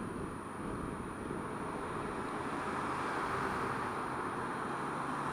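Honda Dio scooter running in slow traffic, heard as a steady rush of wind and road noise over the small engine. The noise grows a little louder about halfway in as the scooter enters a covered road tunnel.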